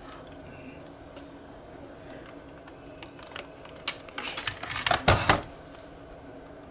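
Handling of a desk telephone and its telephone line cable as the cable is unplugged: a few faint plastic clicks, then a quick flurry of clicks and knocks about four seconds in, loudest around five seconds.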